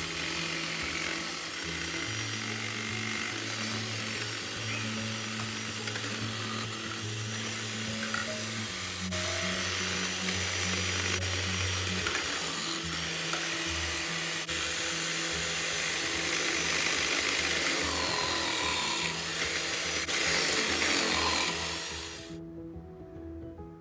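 Electric food processor running with a grating disc, shredding raw potatoes pushed down its feed tube; the motor and grating noise stop suddenly about two seconds before the end. Background music plays underneath throughout.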